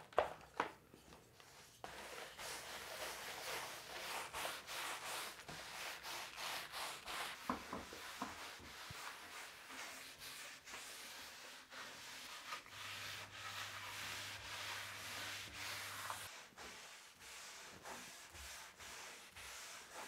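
Hand pad rubbed back and forth over plywood, spreading hardwax oil, making soft, repeated swishing strokes that fade somewhat near the end.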